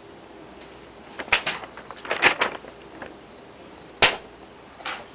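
Irregular sharp clicks and knocks: a few in quick succession about a second in, another cluster about two seconds in, then a single louder knock about four seconds in and a fainter one shortly after.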